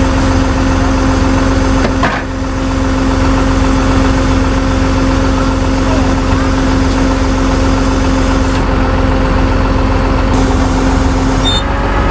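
Tow truck engine running with a steady hum, and a single short knock about two seconds in.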